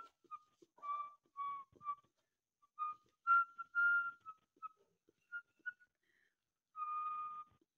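A person whistling a series of short, flat, breathy notes, about a dozen, with one longer held note near the end.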